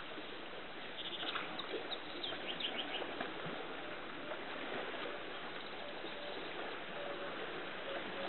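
Birds chirping in short calls over a steady outdoor background noise, with a run of brief, repeated low notes in the second half.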